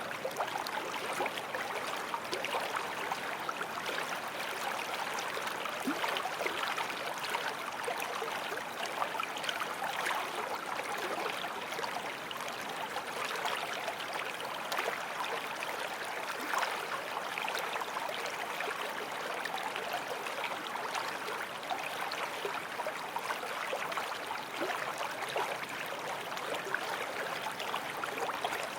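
Running creek water, a steady babbling and trickling over stones.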